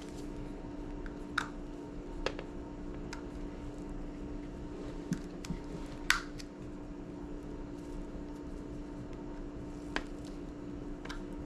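A few short, sharp clicks and ticks, spaced irregularly with the loudest a little past halfway, as a small screwdriver works screws out of an iPod classic's case. A steady low hum runs underneath.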